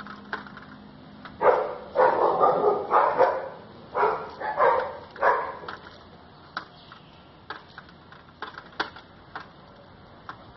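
A dog barking, about seven short barks in quick succession in the first half, then a few faint clicks.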